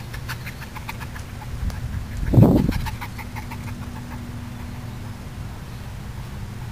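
A dog barks once, short and loud, about two and a half seconds in, over runs of quick high ticking or chirping sounds.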